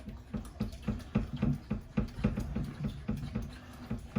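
A spoon clicking and knocking against a bowl in a quick, irregular string, about three or four strikes a second, as a fritter batter is stirred.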